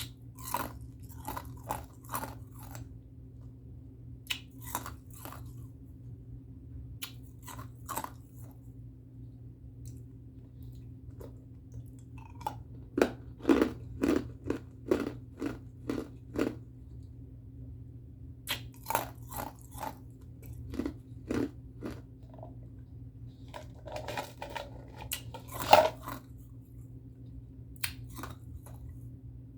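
Ice being chewed close to the microphone: loud crunches in clusters of several bites, separated by short pauses. A faint steady low hum sits underneath.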